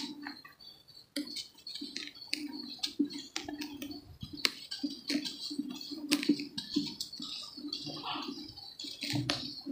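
Dry brown dirt lumps crushed and crumbled by hand over loose dirt in a plastic tub: a run of soft crunches and crackles with loose dirt falling. It starts about a second in after a brief lull.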